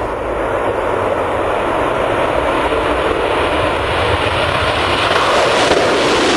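Concorde's Olympus 593 turbojets at takeoff power, a dense jet roar that grows steadily louder and brighter in tone.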